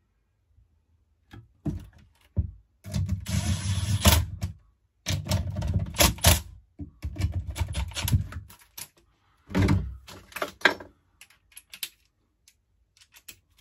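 12-volt cordless impact driver running in several short bursts of about a second each, its rapid hammering clicks driving the screws that mount a two-stroke carburetor, with a few handling clicks before it.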